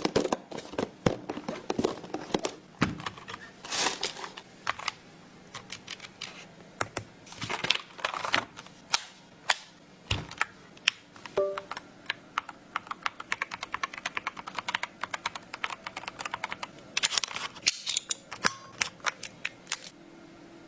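Typing on an RK Royal Kludge H81 mechanical keyboard: a steady stream of irregular keystroke clicks, with faster runs of keys past the middle.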